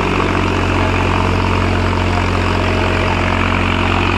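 New Holland tractor's diesel engine running steadily at a low, even speed.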